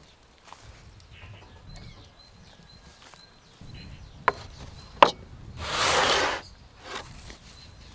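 A wooden serving board set down on a wooden table: two sharp knocks, then about a second later a short, loud rustling swish, with faint bird chirps.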